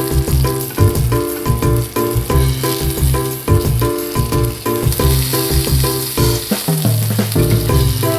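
Background music with a steady beat and bass line, over the hiss of chicken sizzling as it fries in a pan.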